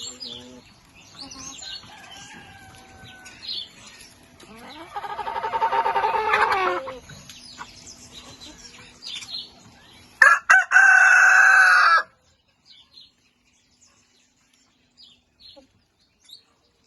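Chickens clucking and calling, with a rooster crowing once, about five seconds in, in one long call. A louder, harsher call comes about ten seconds in and cuts off suddenly; after it only faint clucks remain.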